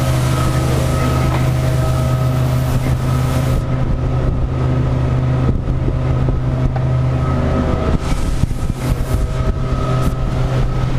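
Suzuki 150 hp outboard motor running at speed, a steady drone under the rush of the wake; the high hiss of spray drops away about a third of the way in. From about two-thirds through the engine tone weakens and wind buffets the microphone in gusts.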